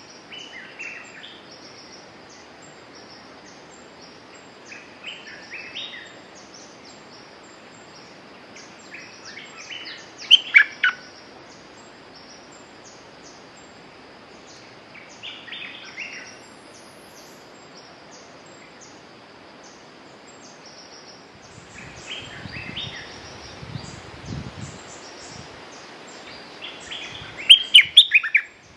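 Bulbul calling in short bubbly phrases of quick notes every few seconds, loudest about ten seconds in and again just before the end.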